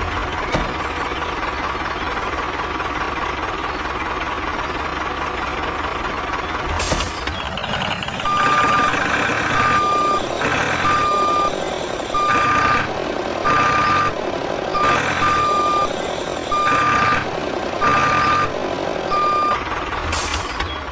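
Steady motor running for several seconds, then a vehicle's reversing alarm beeping over and over, about once a second.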